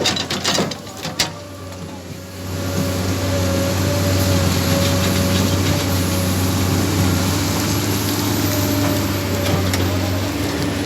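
Engine of a piece of road-construction machinery running steadily, growing louder about two seconds in, after a few sharp clicks.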